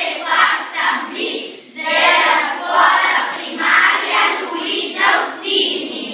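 A class of children singing a song together as a group.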